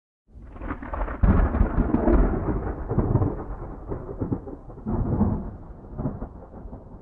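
A thunderclap: a low rumble builds, cracks sharply about a second in, then rolls on and slowly fades with a few further swells.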